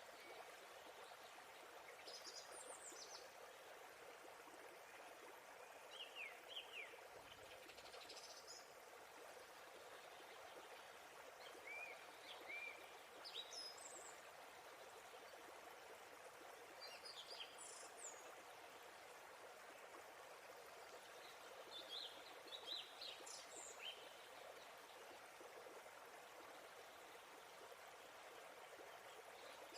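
Steady rush of falling water from a waterfall, with songbirds giving short high chirps every few seconds over it.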